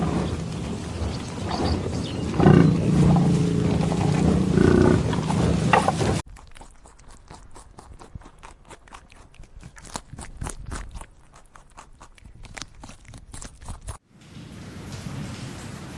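A large wild animal roaring, a deep pitched growl lasting about six seconds. It cuts off suddenly into a quieter, rapid run of crackling clicks, then near the end into a steady hiss.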